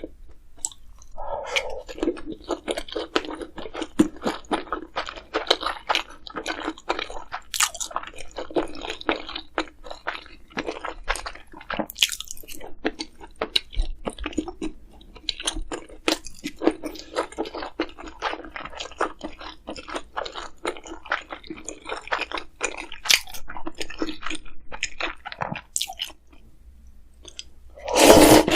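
Close-miked chewing of crisp food: a steady run of irregular, sharp crunches and wet mouth sounds, easing off briefly near the end before a louder noisy stretch.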